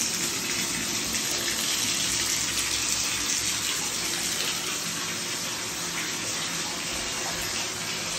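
Water running steadily from a bathtub spout into the tub as it fills for a bath.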